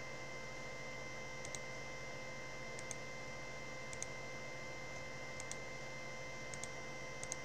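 Computer mouse button clicks, single or in quick pairs, about every second or so, over a steady electrical hum.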